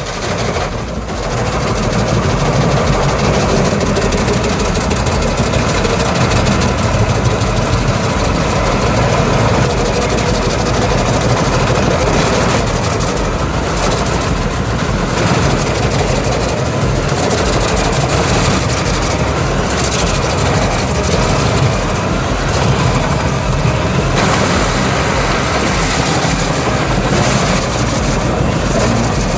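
Large 612-horsepower industrial wood grinder running steadily under load as it shreds timber, with a continuous heavy engine and grinding noise.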